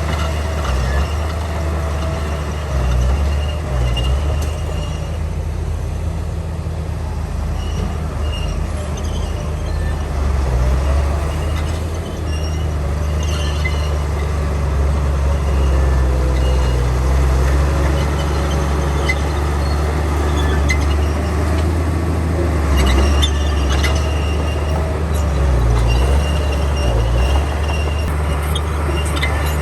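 Heavy diesel earthmoving machinery running steadily with a deep engine note, plus a few sharp metallic clanks about two-thirds of the way through.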